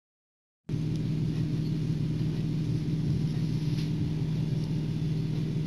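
A steady low hum, broken by a brief total silence right at the start.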